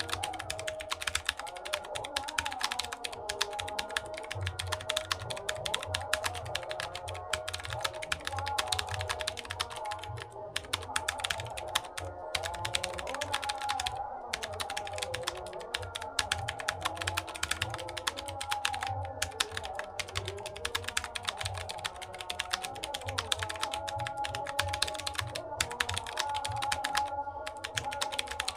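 Fast typing on a computer keyboard: a dense, continuous run of key clicks with a few brief pauses, over background music.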